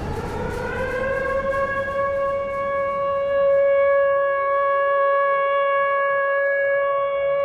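Siren tone sliding up in pitch over about two seconds, then held steady. A fainter second tone joins it about halfway through, and the tail of crashing noise fades out at the start.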